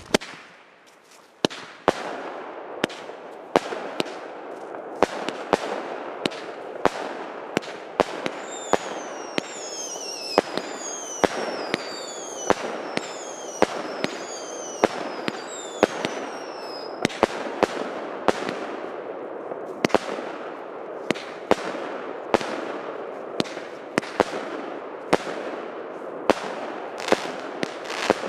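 Baby Fighter 49-shot compact firework cake firing: a steady string of sharp shots, roughly one every two-thirds of a second, over a continuous rushing crackle of bursts. Through the middle of the sequence, shots carry falling whistles.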